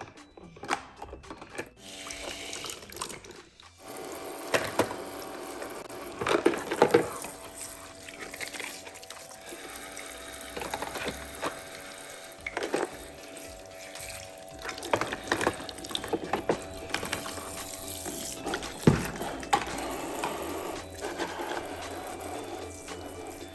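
Toy kitchen sink playset's battery-powered pump running, water running from its faucet into the basin, with short knocks of plastic dishes being handled in the water.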